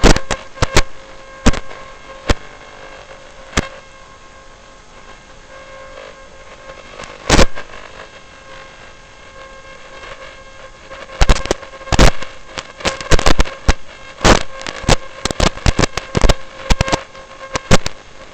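Steady electrical hum over a first-person robot video feed, broken by loud sharp cracks: a few single ones at first, a longer one near the middle, then rapid irregular clusters in the last third.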